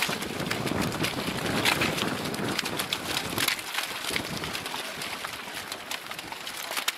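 Boots crunching and shifting on beach gravel, a rapid, irregular run of stone clicks and scrapes, busiest in the first half.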